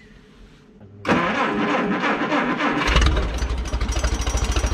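1957 Case 310 Terratrac's four-cylinder gasoline engine cranking on the starter, beginning about a second in, then catching about two seconds later and running with a steady, rapid low pulse.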